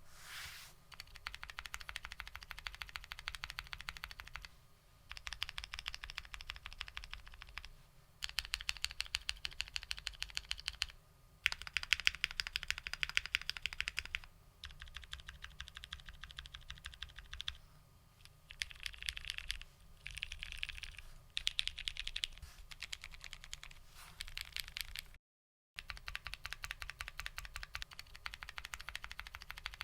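Fast typing on a custom 60% mechanical keyboard: dense runs of keystroke clicks in bursts of a few seconds, with short pauses between them. Just after 25 seconds in, all sound drops out for about half a second.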